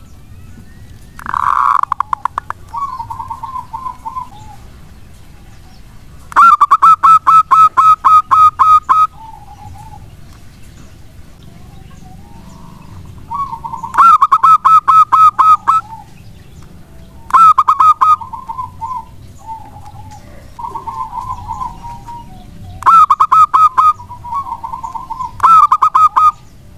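Zebra dove (perkutut) cooing: six loud series of rapid, clipped notes, each lasting one to three seconds, with softer trilled coos in between.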